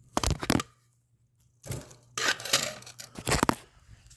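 Clattering knocks and rattles of hard objects being handled and set down, in four short bursts.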